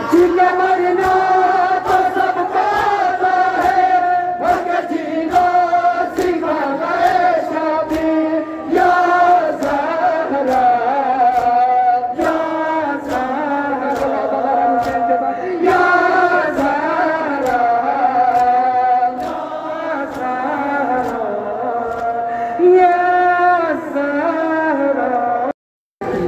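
A large crowd of male mourners chanting a noha (Muharram lament) in unison, the melody rising and falling, over a regular beat of sharp slaps from chest-beating (matam). The sound breaks off for a moment near the end.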